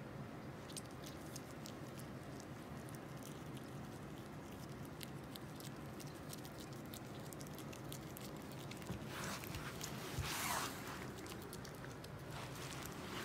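Small-clawed otter chewing jerky: scattered small clicks and smacks, with a louder rustle of the blanket about nine seconds in.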